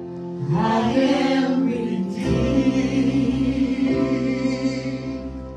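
Live gospel worship music: singing over sustained keyboard chords, with deep bass notes coming in about two seconds in.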